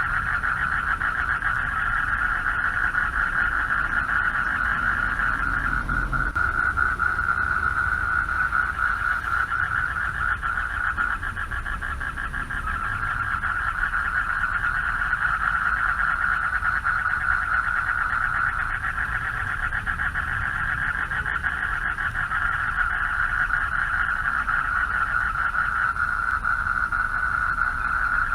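Dense chorus of many male frogs calling for mates from a pond, a continuous pulsing trill at a steady mid-high pitch, over a low rumble.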